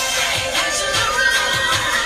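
Music from the truck's factory Bose stereo, playing on the XM satellite radio preview channel.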